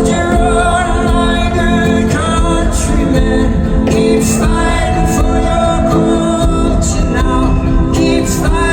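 Live band music with wordless singing over steady low notes and percussion.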